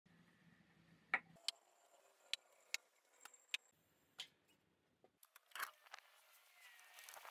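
Sparse, sharp clicks and knocks at irregular spacing, about eight over five seconds, over faint hiss, with another knock a little later.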